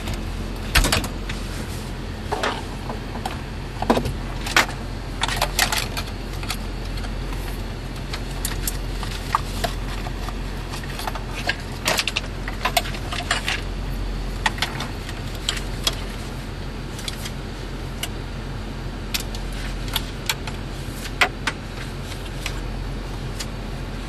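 Irregular clicks, knocks and rattles of plastic wiring-harness plugs and the metal case of a car radio head unit being handled and connected, over a steady low hum.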